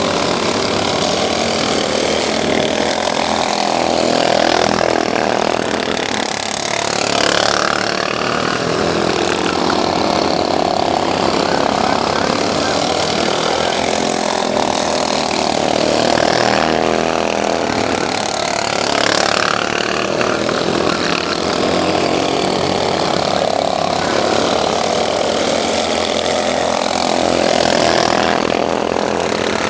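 Racing lawn mower engines running hard, their pitch rising and falling again and again as they rev up and ease off.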